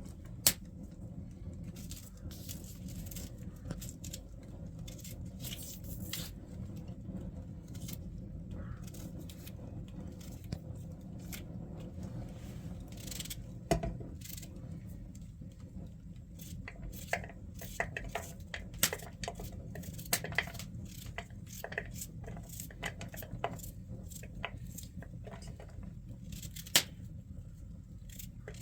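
Scattered clicks, knocks and scrapes of small objects being handled, a few sharper knocks among them, over a steady low hum.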